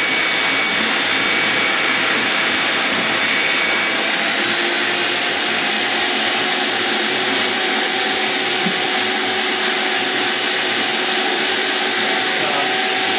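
Vacuum-forming machine's vacuum motor running steadily, a loud even rushing whine, drawing the heated plastic sheet down over the molds; its tone shifts slightly about four seconds in.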